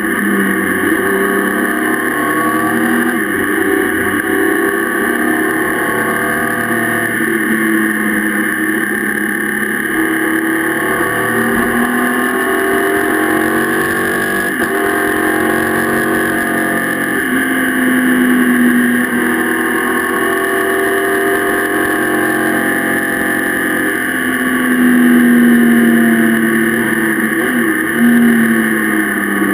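Motorcycle engine heard from a camera mounted on the riding bike, its revs climbing and dropping again and again as the bike accelerates and slows. Steady wind noise on the microphone runs under it.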